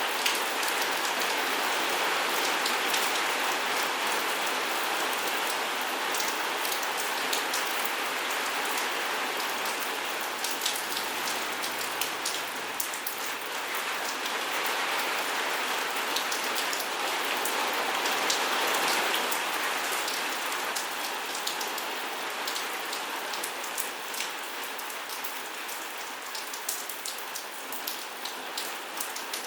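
Steady rain falling, a continuous hiss with many sharp individual drop hits; it eases a little over the last several seconds.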